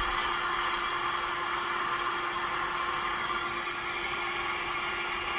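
Small BaBylissPRO hair dryer blowing steadily, with a steady motor hum under the rush of air, used as a low-heat source to shrink heat-shrink tubing over headphone wires.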